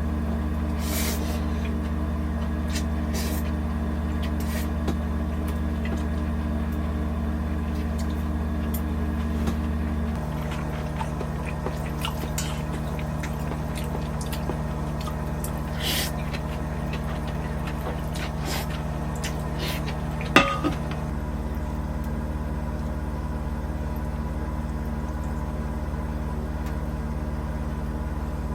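A steady vehicle-like drone with a low hum. Its low tones shift about ten seconds in, and a single sharp click comes about twenty seconds in.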